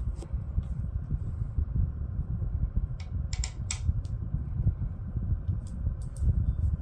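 Light clicks and ticks from a KastKing Centron spinning reel being handled: a cluster of about four some three seconds in and a few more near the end. Under them is a steady low rumble.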